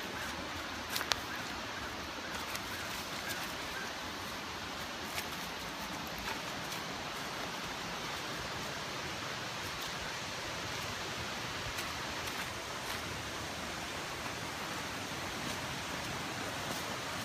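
Steady rush of a river running over rocks, with a few scattered footsteps and rustles in leaf litter on top.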